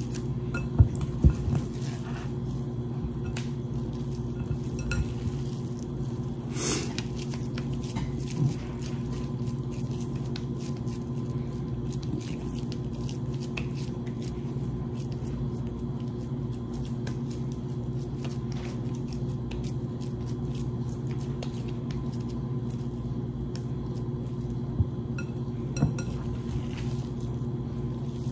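Hands shaping raw ground beef into patties over a glass mixing bowl: soft squishing and patting of the meat, with a few sharp clinks against the glass, over a steady low hum.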